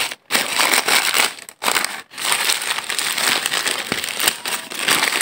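Paper burger wrapper being crumpled and pulled open by hand, a dense crinkling with three short pauses in the first two seconds.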